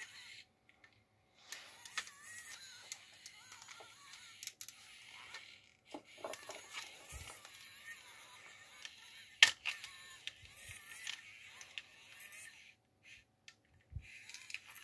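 Small N20 worm-gear motor whining under strain as it drives a 3D-printed scotch yoke, the whine wavering in pitch, with plastic knocks and one sharp click about nine and a half seconds in. The motor is underpowered: even at about 10 volts it only half works the mechanism.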